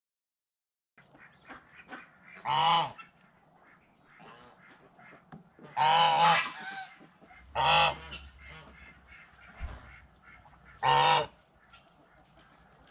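Geese honking: four loud honks a few seconds apart, with softer calls from the flock in between.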